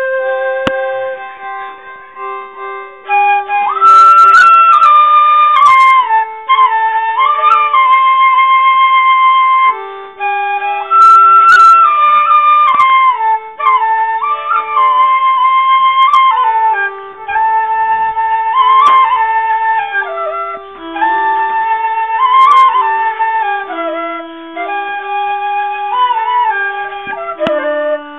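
Background music: a flute melody with sliding, ornamented notes over held lower notes.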